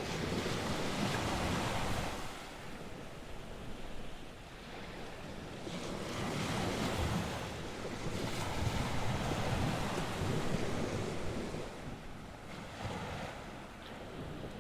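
North Sea surf washing onto the shore, the waves swelling and easing in slow surges a few seconds apart, with wind buffeting the microphone.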